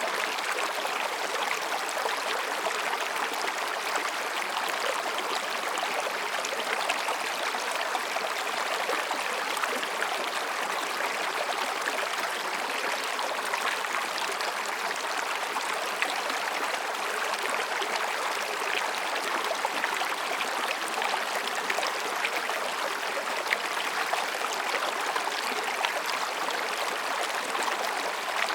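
Mountain stream babbling between rocks: a steady, even rush of water with small splashes throughout.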